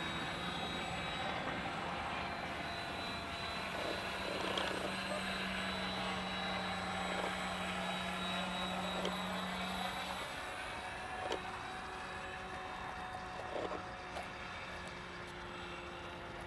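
Motor and propeller of a radio-controlled scale model of a Blériot monoplane droning steadily as it flies past overhead, easing off about ten seconds in.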